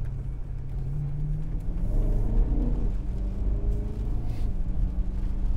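BMW E90 M3's 4.0-litre S65 V8 running under way through an Active Autowerke aftermarket exhaust, heard inside the cabin as a deep rumble. The engine note climbs over the first two seconds, then holds fairly steady.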